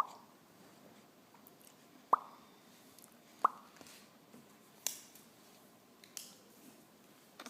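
A three-week-old baby making short, sharp little mouth or throat sounds, five in all, one about every second and a half, the first three the loudest.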